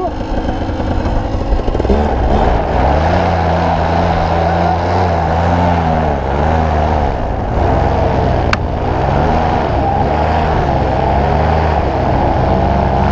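Tandem paramotor's engine and propeller throttling up about two seconds in and running at high power for the takeoff run, its pitch wavering up and down as the wing lifts off.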